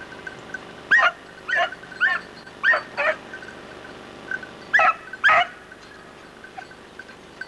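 Beagle yelping on a hunt in scrub: seven short, high cries, five in quick succession and then two more a couple of seconds later.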